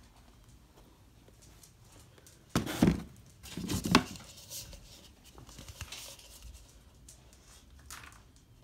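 Compressed horse feed pellets rattling and pouring in a plastic feed scoop: two short clattering bursts about a second apart, starting about two and a half seconds in, then softer rustling of the scoops being handled.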